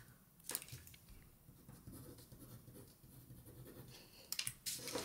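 Faint scratching of a pen writing on paper, with a sharp tap about half a second in and a few light clicks near the end.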